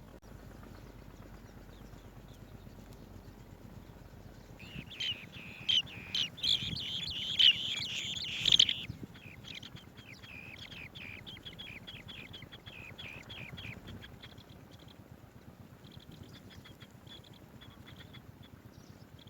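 Swallow-tailed bee-eaters chirping in short, high calls. About five seconds in, the calls turn into a dense, excited burst for some four seconds, with a few sharp knocks as the loudest sounds, then go on more thinly and sparsely.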